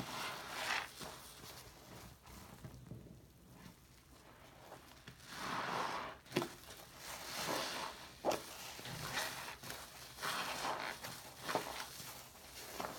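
Lathered yellow foam sponge squelching as it is squeezed and kneaded in thick shaving-cream foam, in repeated wet squishes a second or two apart, with a quieter pause a few seconds in.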